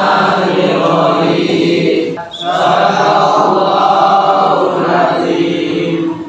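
A class of students reciting Quran verses aloud in unison, a chanted recitation with a short breath pause about two seconds in.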